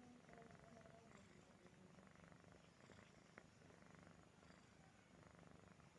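Domestic cat purring steadily and softly, with one faint click about three and a half seconds in.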